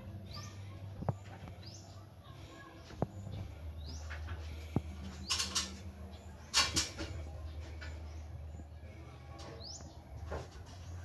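Short rising bird chirps repeating every second or two over a steady low hum, with a few sharp clicks and two brief, louder scraping noises about five and a half and seven seconds in.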